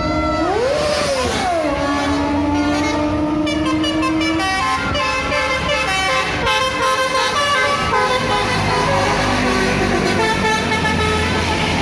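Indonesian bus 'telolet' musical horn playing a tune: a note that bends up and back down in the first second or so, a long held note, then quicker changing notes from about four and a half seconds in.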